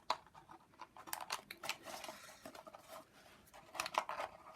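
Light scratching, rustling and small clicks of craft materials being handled: a tissue-paper-covered ear being pushed into a slit in a plastic milk bottle.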